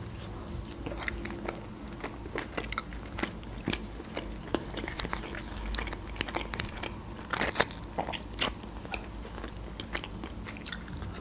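Close-miked chewing and crunching of a baked bread roll, with many small wet mouth clicks and a few louder crunches about seven and a half and eight and a half seconds in.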